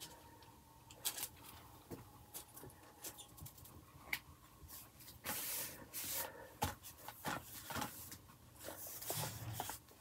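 Paper rustling, with light taps and scrapes, as hands lay paper cut-outs onto a collage page and smooth them down by hand.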